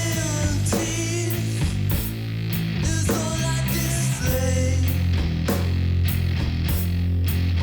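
Stoner rock played by a three-piece band: distorted electric guitar over heavy bass and steady drum hits, with a melody line bending up and down in pitch.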